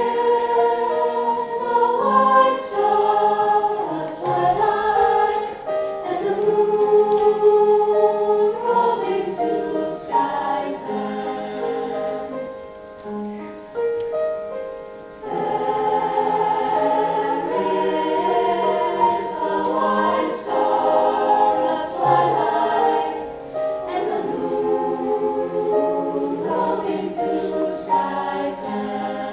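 School choir singing held chords in several parts, growing softer a little before halfway and coming back in full just after.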